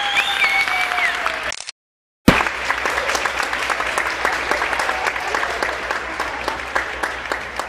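An audience applauding: dense clapping that starts about two seconds in, right after a brief cut-out in the sound, and runs on steadily.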